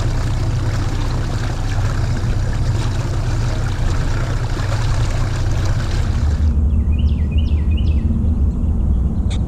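Heavy wind buffeting the microphone on a boat with a steady low rumble. About six seconds in the sound changes abruptly to a deeper rumble with a few short chirps.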